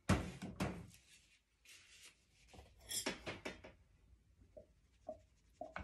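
Rubbing and clattering as a stick blender is handled and stood in a plastic pitcher of soap oils beside a mesh strainer, then a few short light knocks near the end. The blender is not switched on.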